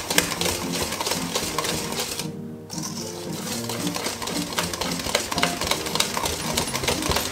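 Wire whisk beating flour into chocolate cake batter in a stainless steel bowl: a fast, steady run of metallic clicks and scrapes as the wires strike the bowl. The beating pauses briefly about two seconds in.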